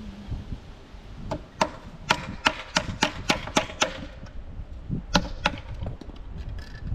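A series of sharp knocks: about nine in quick succession, roughly three a second, then two more after a short pause.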